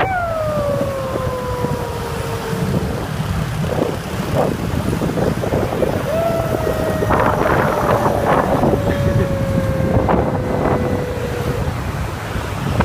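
A man imitating a police siren with his voice: a long "woo" that jumps up and slides slowly down for about three seconds, then a second, longer one starting about six seconds in, over steady wind noise on the microphone and the running motorbike.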